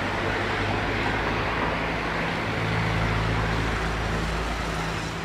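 Road traffic: a nearby motor vehicle's engine running steadily with a low hum, over a wash of traffic noise.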